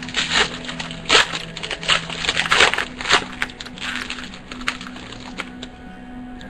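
Trading card pack being opened and the cards handled: irregular crinkling of the foil wrapper and rustling of cards, with faint background music.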